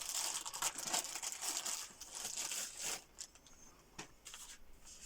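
Crinkly packaging being handled and crumpled for about three seconds, then a few light clicks and rustles.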